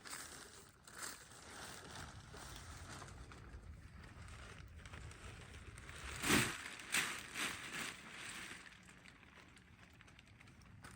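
Coop parts being handled during assembly: a sharp knock about six seconds in, then three lighter knocks over the next two seconds, over a low steady rumble.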